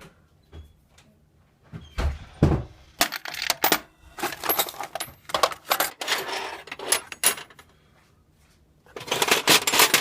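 Metal sockets and hand tools clinking and rattling in irregular bursts of sharp clanks, as someone rummages for the right socket size.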